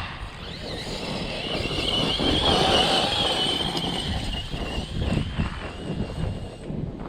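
Electric RC monster truck driving over gravel. Its motor and drivetrain give a high whine that climbs a little, holds, and cuts off near the end, over crunching and knocking from the tyres on the rocks.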